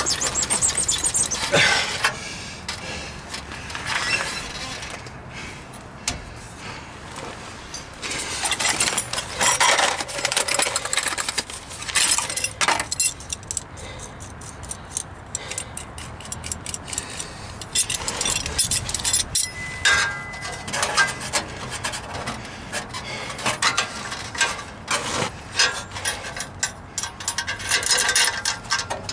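Intermittent metallic clinks, scrapes and rattles of hand tools on exhaust pipe fittings as a new resonator pipe and its clamps are fitted to a 2006 Toyota Corolla's exhaust, with a brief squeak about twenty seconds in.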